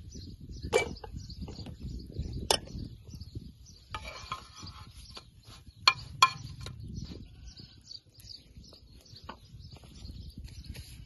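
A metal spoon scraping and clicking against a black iron frying pan, with two sharp clicks about six seconds in, over birds chirping and a low outdoor rumble. A couple of other sharp cracks come in the first few seconds.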